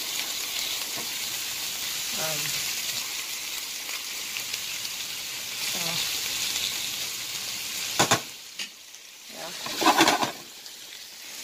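Cubed ribeye steak sizzling in butter in a nonstick frying pan, stirred with tongs. About eight seconds in come a couple of sharp knocks and the sizzle drops away, then a clatter near the end as the pan is moved on the stovetop.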